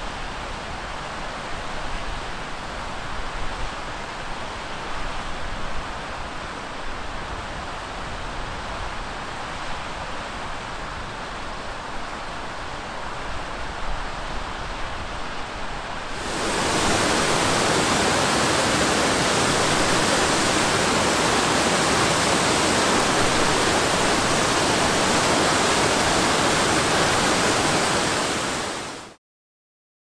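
Rushing water of a mountain waterfall and its rocky stream, a steady hiss. About halfway through it suddenly becomes louder and brighter, and it cuts off sharply near the end.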